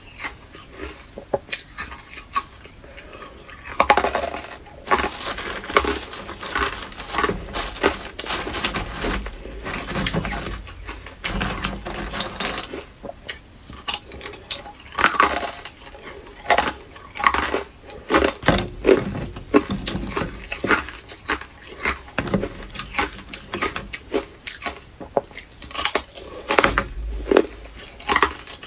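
Hard ice being bitten and chewed close to the microphone: a dense, uneven run of sharp crunches and cracks.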